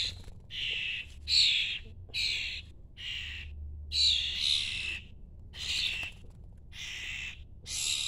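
Fledgling songbirds giving short, harsh, hissing begging calls over and over, about one a second, loud and close.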